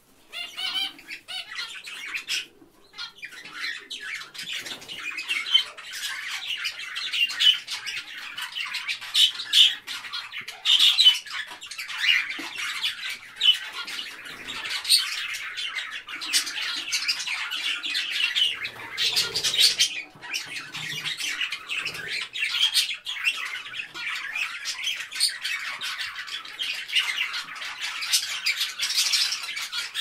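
Budgerigars chattering and chirping: a continuous stream of overlapping calls, with brief pauses about two and a half seconds in and again about twenty seconds in.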